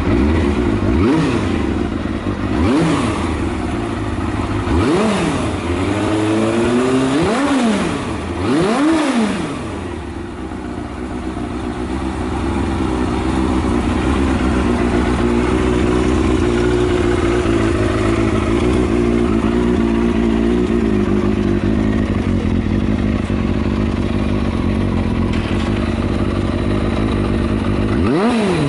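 Kawasaki Balius II (ZR250B) 250 cc inline-four running through an aftermarket Outex titanium full exhaust. It is blipped in about five quick revs over the first ten seconds, then settles to a steady idle. It runs without abnormal noises.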